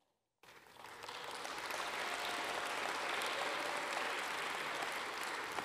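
Audience applauding, starting about half a second in, swelling over the next second and then holding steady.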